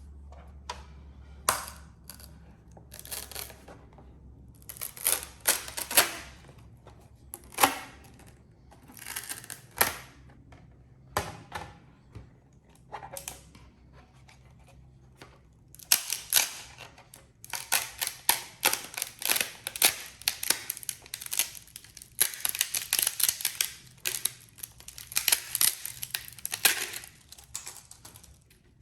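Irregular sharp clicks and snaps mixed with short bursts of scraping and rustling, as of hard objects being handled; denser and busier in the second half.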